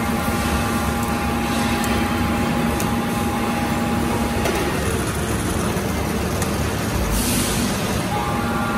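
Drill press running while a tap cuts threads into a cast metal forklift fitting: a steady motor hum and whine over loud, even machine noise. The whine drops out about halfway through and returns near the end, when a hiss also comes in.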